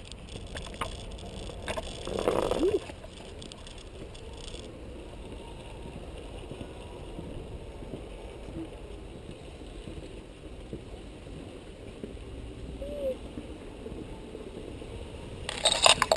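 Steady low rumble of wind and handling noise on a carried camera's microphone during walking. There is a brief louder sound about two seconds in, and a quick cluster of clicks and knocks near the end.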